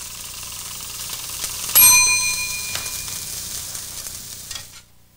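Hamburger patties sizzling in a frying pan. About two seconds in, a kitchen timer bell rings once and rings on for about a second, signalling that the first side is done. The sizzle cuts off suddenly near the end.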